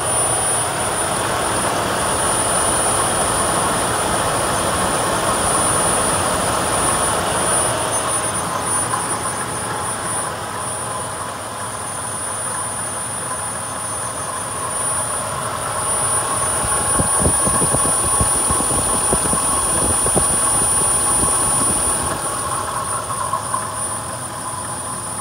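Dodge Ram 1500 pickup's engine idling steadily, heard up close in the open engine bay.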